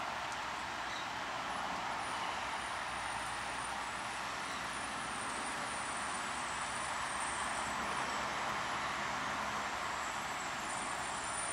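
Newag SA138 diesel railbus running slowly through the station, a steady engine and running noise, with a thin high squeal wavering above it.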